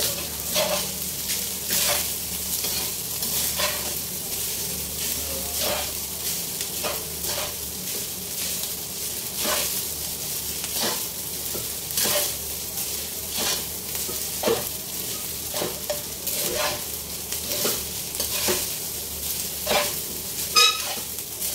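Cooked rice frying in a steel wok, a steady sizzle under the irregular scrape and clink of a metal spatula turning it, about one or two strokes a second. One ringing metal clink near the end.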